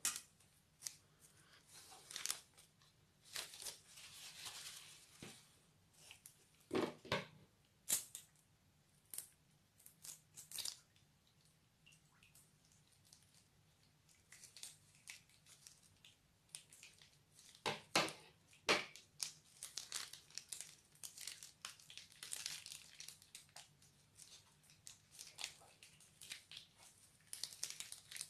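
Plastic piping bag crinkling and rustling in the hand as it is squeezed, in irregular crackles, with two louder bursts of handling noise, about a quarter of the way in and again past the middle.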